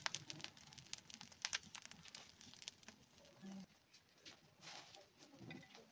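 A burning heap of dry straw crackling, with many small, irregular pops and snaps, faint.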